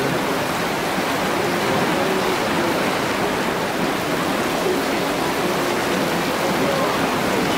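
Storm water welling up out of a street manhole, bubbling and rushing steadily in a flooded road while heavy rain falls on the surface water. The storm drain is overwhelmed and backing up.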